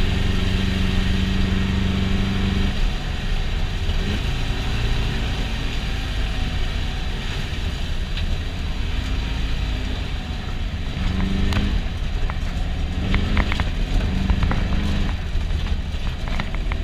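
VW Beetle baja bug's 1641cc air-cooled flat-four engine running hard, heard from inside the cabin. Its pitch holds steady for the first few seconds, then rises and falls with the throttle. From about halfway in come many sharp knocks and clatters.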